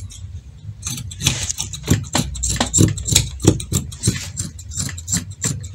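Fabric scissors cutting through cloth: a quick, irregular run of crisp snips, several a second, over a steady low hum.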